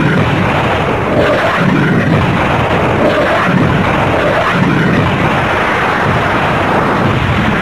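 Jet aircraft noise: a loud, steady rushing roar with slow low swells.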